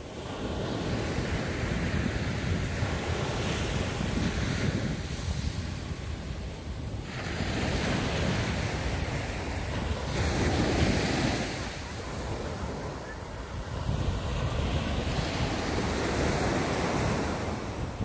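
Sea waves breaking and washing up a sandy beach, the surf swelling and easing every few seconds. Wind buffets the microphone with a low rumble throughout.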